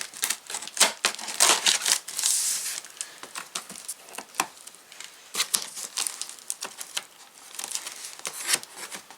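Cardboard box flaps being pried open and packing tape torn and crinkled by hand, an irregular run of scraping, tearing and crackling with occasional knocks.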